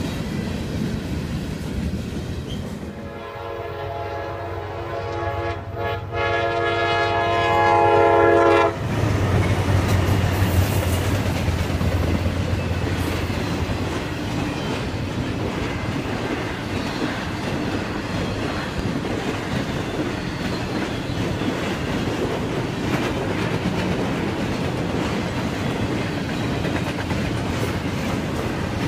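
Freight cars rolling past with wheel clatter. About three seconds in, a locomotive air horn sounds two long blasts, the loudest thing here, cutting off abruptly near nine seconds. Then a low hum and the steady rumble and clatter of double-stack container cars rolling over the rails.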